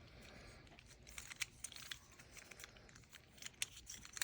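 Faint, scattered clicks and crinkling of plastic fidget toys being handled, including a folding square fidget being folded and opened.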